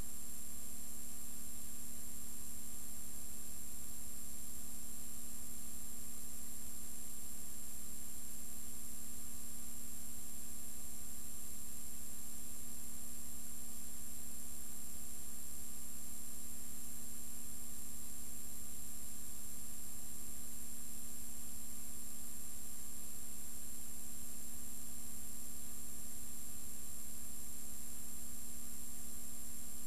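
Steady hiss with a low electrical hum and a thin high whine, unchanging throughout: the background noise of a silent film's transfer, with no sound from the scene itself.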